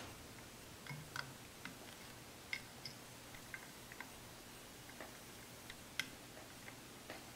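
Irregular small metallic clicks and taps of a screwdriver working a screw that is going in slightly crooked into an antique Marlin rifle, with a sharper click about six seconds in.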